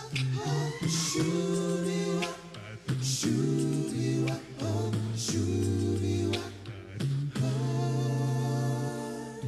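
All-male a cappella group singing a rock and roll medley: a deep sung bass line under held close-harmony chords, punctuated by sharp percussive hits.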